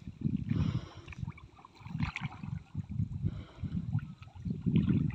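Muddy water sloshing and splashing in irregular bursts as a person wades through a shallow ditch and gropes in the mud with hands and a bamboo basket.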